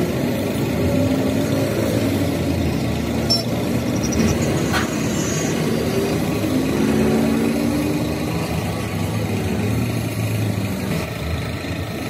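Steady running of a small piston air compressor feeding a paint spray gun, with the spray gun hissing and traffic going by.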